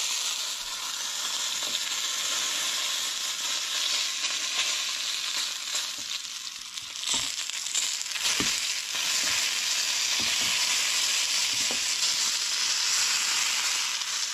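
Smoked dove breasts searing in hot olive oil in a nonstick frying pan: a steady sizzle, with scattered pops and crackles around the middle.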